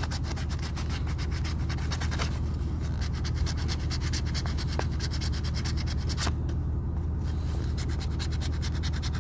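A coin scratching the coating off a scratch-off lottery ticket in rapid back-and-forth strokes, with a short let-up about six seconds in before the scratching resumes.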